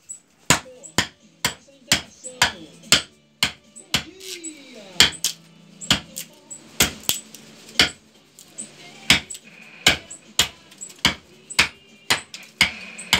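Small hatchet chopping into a wooden spoon blank braced upright on a stump, roughing out its shape: sharp wooden chops in a steady rhythm of about two a second.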